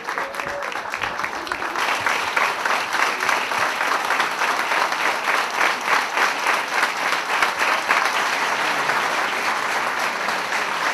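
A crowd applauding. About two seconds in the clapping falls into a steady shared rhythm, then loosens into ordinary applause near the end.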